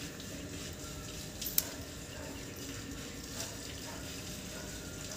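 Marigold flower heads being plucked by hand: a faint steady hiss, with a sharp snap about a second and a half in.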